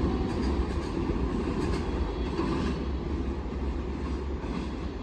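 Container freight train of Koki flatcars running through a station without stopping: a steady rumble of the wagons with wheels clattering over the rail joints, growing slightly fainter towards the end.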